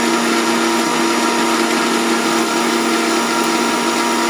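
Electric kitchen mixer grinder running steadily at speed, wet-grinding onion, ginger, betel leaves, cloves and black pepper with a little water into a fine paste. The motor makes a loud, even whirr with a steady whine through it.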